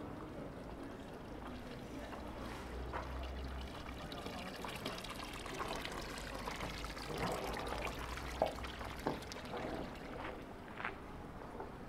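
Water pouring from a metal spout into a stone fountain basin, a steady splashing trickle, with a few brief sharp sounds near the end.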